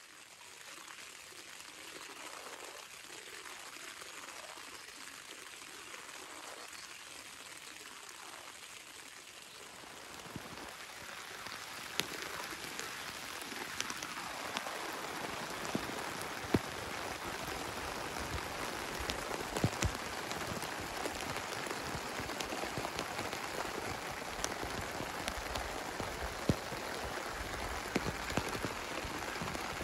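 Steady rain pattering on a tent's fabric, then falling outdoors with scattered sharper drop hits. The rain grows louder about halfway through.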